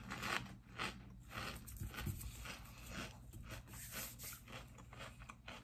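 Kettle-cooked potato chips crunching as they are chewed: a run of quick, irregular crunches.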